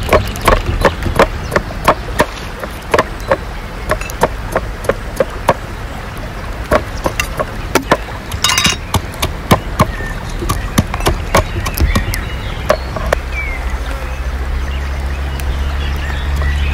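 Repeated sharp chopping strikes, irregular, a few a second. A low steady hum joins about two-thirds of the way through.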